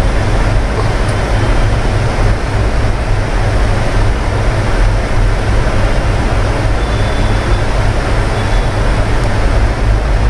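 Steady low electrical hum under a constant hiss of background noise, with no distinct events.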